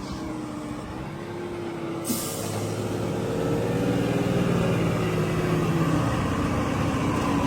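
Heavy diesel engine running steadily, its pitch and loudness rising slowly. About two seconds in there is a sudden hiss that fades over a second.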